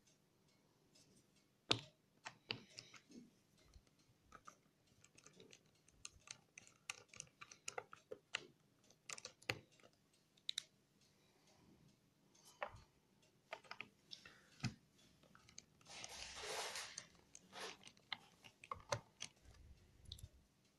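Faint, irregular clicks and ticks of a small precision screwdriver turning and tapping the screws on a laptop's bottom panel, with light handling taps on the case. A brief rustling scrape about two-thirds of the way through.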